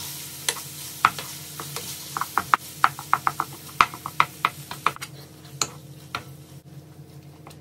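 Wooden spatula tapping and scraping against a nonstick frying pan, chopping up ground beef as it browns, over a light sizzle. The taps come irregularly, several a second, and thin out near the end.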